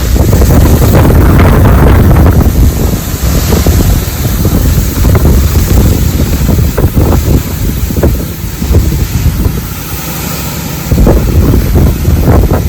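Strong gusty wind buffeting the microphone with a heavy low rumble. It eases for a few seconds about two-thirds of the way through, then gusts back up.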